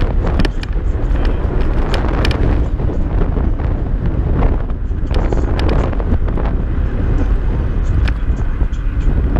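Heavy wind buffeting the microphone of a camera riding on a moving Kaabo Mantis Pro electric scooter, a steady low rumble, with a few sharp clicks or rattles scattered through it.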